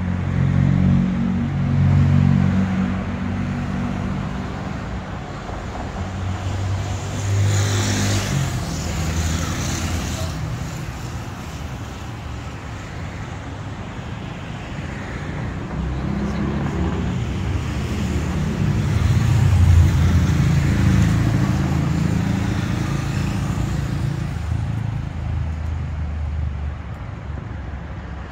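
City street traffic: cars going by on the avenue, their engine hum and tyre hiss swelling and fading as each one passes, loudest about two-thirds of the way in.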